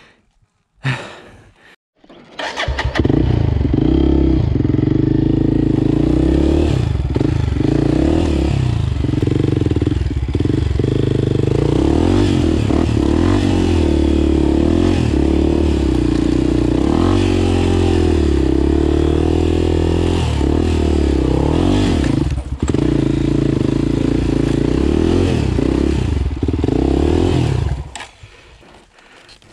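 Off-road dirt bike engine starting about two and a half seconds in, after a short sound at about one second, then running loud with its revs rising and falling under the throttle, and dropping away near the end.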